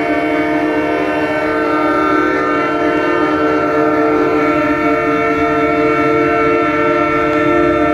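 Train-style air horns on passing semi trucks held on without a break, several chords overlapping, with a new horn tone joining about four seconds in.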